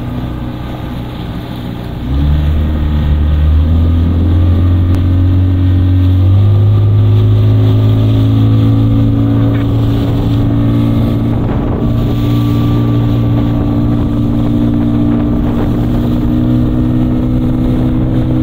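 Outboard motor of a small motorboat running, throttled up in two steps about two and six seconds in, then running steadily at speed, with wind buffeting the microphone.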